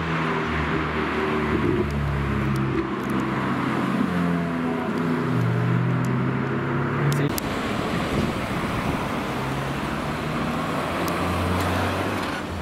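Ferrari sports car engines running loudly as cars drive off. The pitch steps up and down with throttle and gear changes, then gives way after about seven seconds to a rush of road noise and a lower engine hum.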